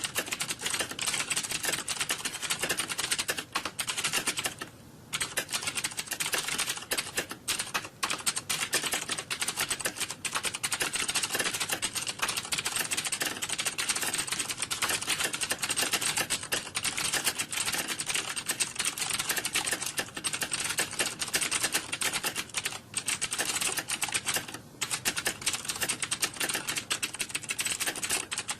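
Rapid, continuous typing on a computer keyboard, a dense run of key clicks with a short pause about five seconds in and another near the end.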